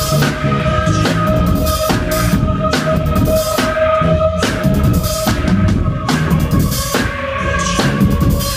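Live band playing an instrumental groove with no rapping: a drum kit with bass drum and snare hits over a bass line, and a steady held keyboard note.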